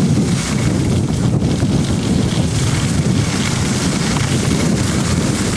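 Wind buffeting a camcorder's built-in microphone while the camera operator skis downhill: a steady, loud low rumble with a hiss above it.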